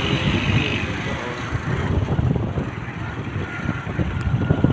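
Wind buffeting the microphone over a steady rumble of road and traffic noise from riding a motorbike.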